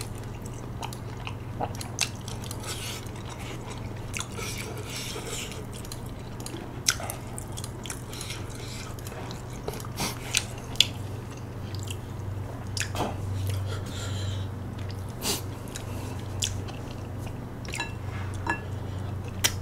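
A person chewing and biting a mouthful of food close to the microphone, with scattered sharp wet mouth clicks. A steady low hum runs underneath.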